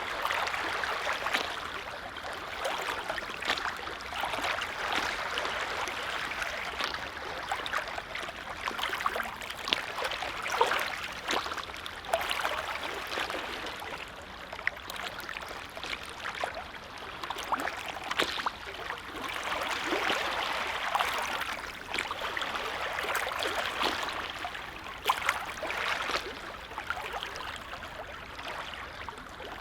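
Small lake waves lapping: a steady wash of water broken by many small, irregular splashes.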